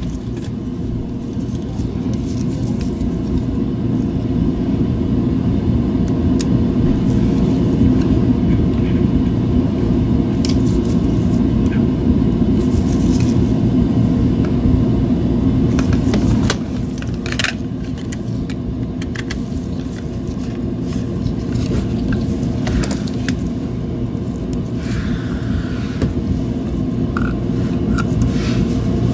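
A steady low rumble throughout, with scattered small clicks and taps as the plastic shell halves of a Logitech Anywhere 3 mouse are handled, pressed together and screwed shut with a small screwdriver.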